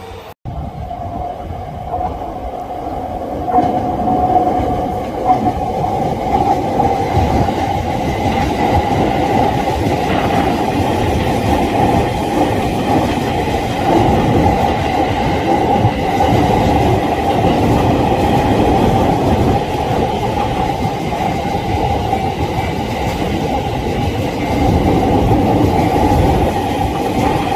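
Electric commuter train passing close by, wheels clattering over the rail joints in a steady loud rumble after a brief dropout about half a second in.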